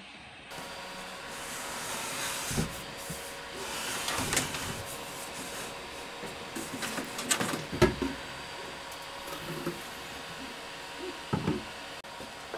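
Several short knocks and clunks as the parts of an Elegoo Mercury Plus wash-and-cure station are handled and set in place, including its yellow plastic cover, over a steady hiss.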